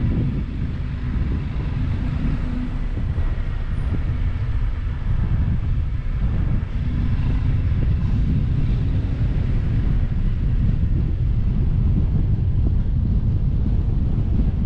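Wind buffeting the microphone of a moving camera: a steady, fluctuating low rumble, with some vehicle road noise mixed in.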